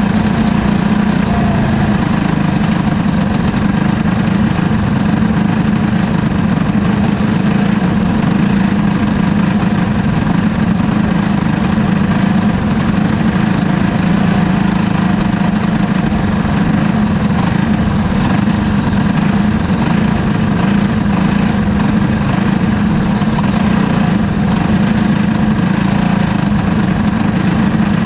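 Racing kart engine running steadily at an even pitch, heard loud and close from a camera mounted on the kart.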